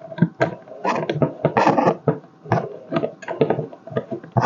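Irregular clicks, knocks and rattles of teleprompter parts being handled and taken apart, a dozen or so short knocks with scraping between them.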